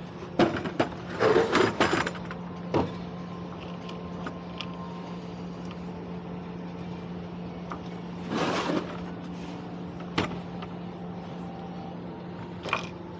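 Knocks and clatter of tools and metal parts being handled, over a steady low machine hum. The knocks come in a cluster in the first few seconds, then there is a short rush of noise partway through and two single clicks near the end.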